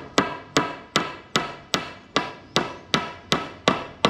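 Hammer driving a 17x21 steel nail into a pre-drilled hole in a wooden post: about eleven even blows, roughly two and a half a second, each with a short metallic ring.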